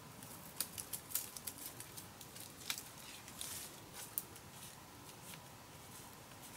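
Dry bamboo leaf litter and twigs crackling and rustling in short snaps as hands work through it at ground level. The crackles come thick for the first four seconds, then thin out.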